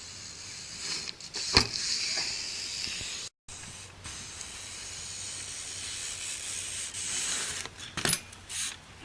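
BMX bike riding: a steady hissing rush of tyre and air noise, with a sharp knock about one and a half seconds in and another near the end, cut off briefly by a short break between clips.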